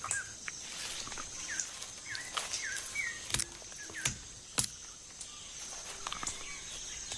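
Sharp knocks of a chimpanzee cracking nuts with a hammer stone on an anvil, the three loudest coming in quick succession about halfway through. Under them run a steady high insect drone and a bird's short repeated chirps.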